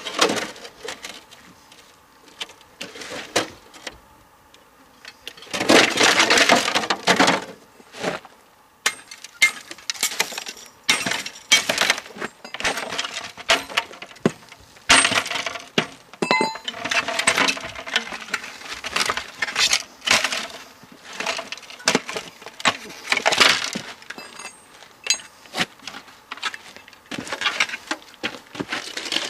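Scrap television being pulled apart by hand: irregular clinks, clatters and rattles of metal and plastic parts, with a denser, longer scraping stretch about six seconds in.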